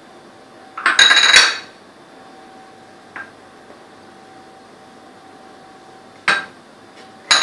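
Kitchen dishes clinking and clattering: a loud ringing clatter about a second in, then two shorter clinks near the end, over a faint steady hum.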